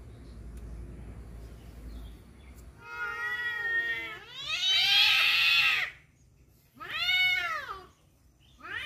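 Rival tomcats caterwauling at each other over a female. A long, drawn-out yowl begins about three seconds in and swells for about three seconds. A shorter yowl rises and falls about a second later, and another begins near the end.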